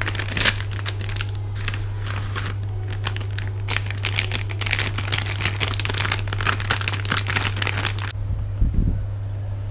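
Soft plastic wrapper of a Scotch-Brite wet mop-cloth refill pack crinkling as it is handled, stopping about eight seconds in. A steady low hum runs underneath, and a soft low thump comes near the end.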